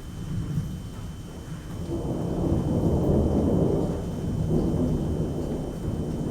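Rolling thunder from an approaching thunderstorm: a deep rumble that swells about two seconds in and keeps rolling.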